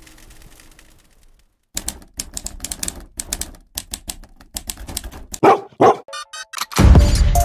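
Typewriter keystroke sound effect: a run of quick, irregular key clacks starting a couple of seconds in. Two louder short sounds follow, then a brief rapid ticking, and a loud sudden sound near the end.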